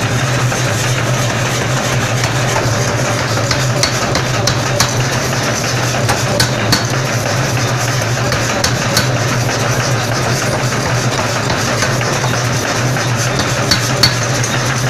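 Forging power hammer running with a steady mechanical hum as hot steel is worked between its dies, with a few sharp metallic clicks.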